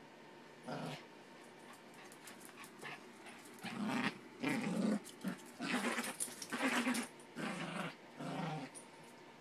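Yorkshire terrier growling in a string of short bouts while play-fighting a plush toy, a single growl near the start and then a rapid run of louder ones from about three and a half seconds in.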